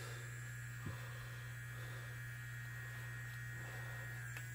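Slow-speed electric sanding tool running with a steady low hum and a faint high whine, with one light tap a little under a second in.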